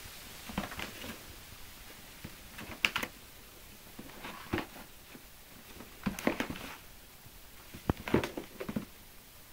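Cardboard product box being handled and opened by hand: scattered taps, clicks and scrapes of card and packaging in irregular clusters.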